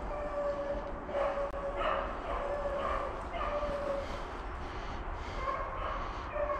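Young rabbit-hunting hounds baying on a rabbit's trail: a string of long, steady-pitched bawls, one after another with short breaks.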